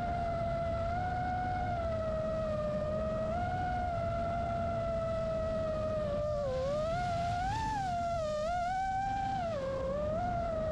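Motors of a 5-inch FPV racing quadcopter whining at a fairly steady pitch, then swinging up and down in pitch in the second half as the throttle is worked. Underneath is a constant rumble of wind on the microphone.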